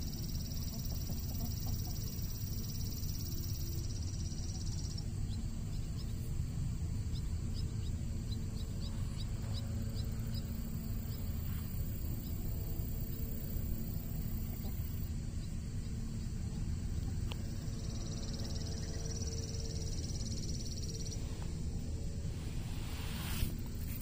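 Outdoor rural ambience: a steady high insect drone that cuts out about five seconds in and returns near the end, over a constant low rumble, with faint short chirps in between. A single sharp knock near the end.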